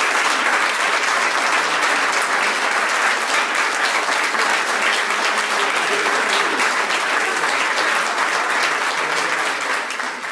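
Audience applauding in a hall: a dense, steady patter of many hands clapping, tailing off near the end.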